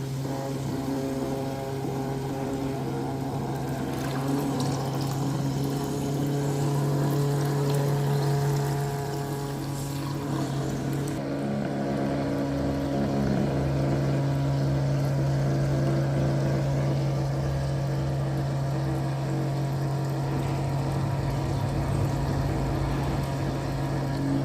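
Small 12-volt DC water pump running with a steady hum, water circulating and splashing through the tubing.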